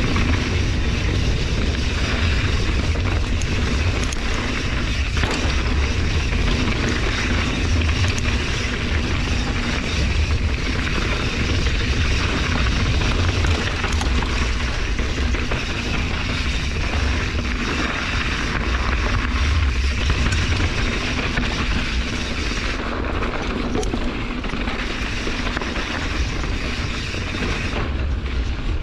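Wind rushing over a GoPro's microphone, with a steady low rumble, and knobby mountain-bike tyres rolling fast on dry dirt, with light rattles and ticks from the bike, a Santa Cruz Hightower LT, on a downhill run.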